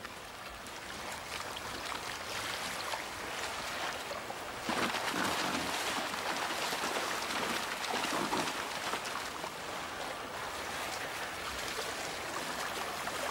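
Shallow river running over a stony bed, a steady rush of water. About five seconds in it grows louder for several seconds before easing back.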